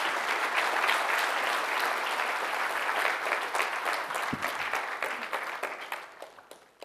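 Large audience applauding: a dense, steady patter of many people clapping that dies away near the end.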